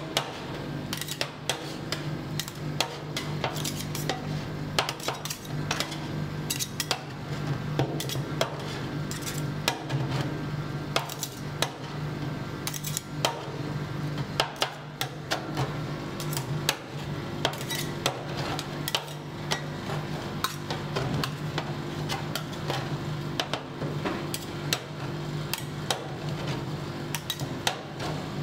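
Two metal spatulas chopping, scraping and tapping ice cream on the steel cold plate of a rolled-ice-cream pan: a rapid, irregular clatter of sharp metal clicks and scrapes over a steady low hum.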